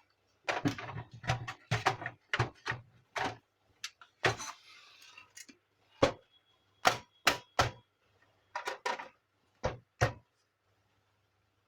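Irregular plastic clicks and knocks as parts of a Canon imageCLASS MF4750 laser printer are handled and fitted back in place, with a brief rustle about four seconds in.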